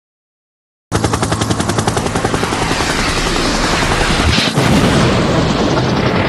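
Helicopter rotor sound, a rapid, even chopping over a low engine hum, starting suddenly about a second in.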